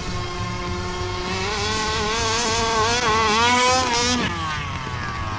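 HPI Baja 5B's stock 29cc two-stroke petrol engine revving hard as the buggy accelerates, its pitch climbing and wavering with the throttle. About four seconds in, with the car in the air off a jump, the note breaks off and the revs fall away in a descending whine.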